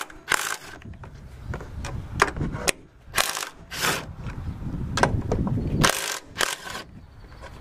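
Hand ratchet wrench on an extension and socket, clicking in short irregular runs as it backs off the upper strut-mount nuts on the strut tower.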